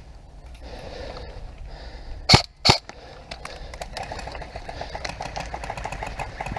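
Airsoft gunfire: two loud, sharp shots about half a second apart a little over two seconds in, then a fast, even rattle of full-auto fire from about four seconds in.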